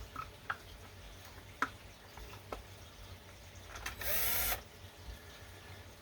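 Small clicks and taps of plastic pump parts being fitted together during reassembly of a diaphragm air pump. About four seconds in comes a short, loud whirring burst lasting about half a second.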